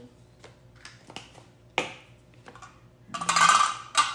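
Light clicks and taps of a plastic spice jar being handled over the kitchen counter, then a louder rough scraping rustle lasting under a second near the end as the jar is put down.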